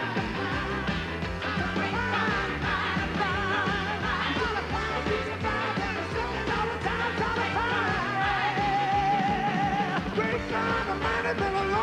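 Rock and roll song played by a band with pianos and drums, with singing over it. A long sung note with vibrato is held from about eight to ten seconds in.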